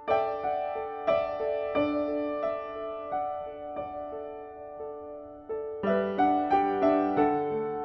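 Background piano music: a slow melody of struck notes that ring and fade, growing busier about six seconds in.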